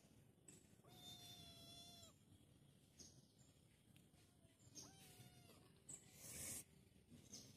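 Kitten meowing faintly twice: a long, high, level meow about a second in and a shorter bending one about five seconds in. A brief noisy hiss-like burst follows about six seconds in.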